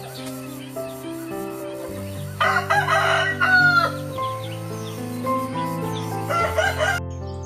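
A rooster crows once, loudly, about two and a half seconds in, over steady background music, with a shorter chicken call near the end.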